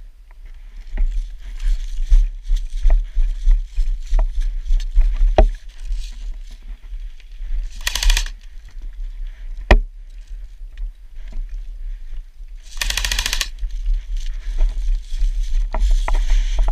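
Airsoft guns firing: scattered single shots as sharp clicks, and two short rapid bursts, the longer one near the end, over a steady low rumble on the microphone.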